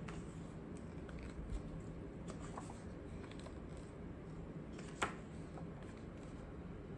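Pages of a large, heavy-paper art book being turned by hand: soft paper rustles and small clicks, a soft thump about a second and a half in, and one sharp click about five seconds in, over a steady low hum.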